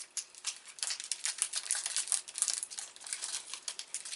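Plastic wrapper of a KitKat bar crinkling as it is unwrapped and handled, a dense run of rapid crackles that is busiest in the middle.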